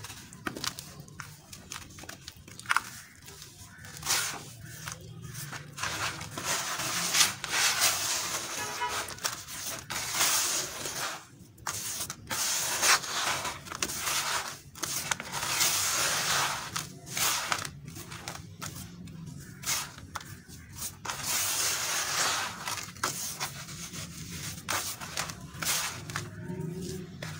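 Hands rubbing, squeezing and crumbling gritty damp red dirt in a plastic basin: an irregular gritty rubbing and scraping that rises and falls with each handful.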